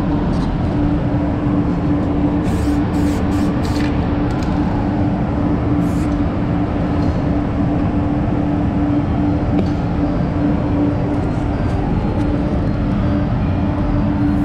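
Spray booth ventilation running: a steady rushing air noise with a constant low hum.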